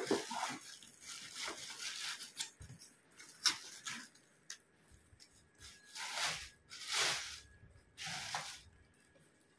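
Plastic wrapping being pulled and torn off a speaker, crinkling and rustling in irregular bursts with short pauses between them.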